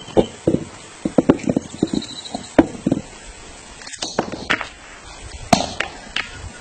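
Capuchin monkey cracking a nut with a heavy stone on a log anvil: a series of sharp, irregular knocks of stone on nut and wood.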